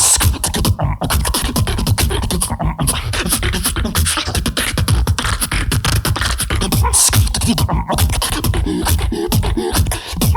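Beatboxer performing into a microphone: a fast, dense run of percussive mouth sounds over a deep bass, without a break.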